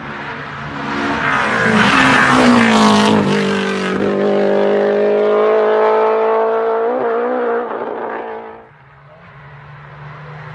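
Rally car engine at full throttle: the note rises as it approaches, drops in pitch as it passes about two and a half seconds in, then holds high and steady as it pulls away. The note dips briefly near seven seconds, and the car fades out about nine seconds in.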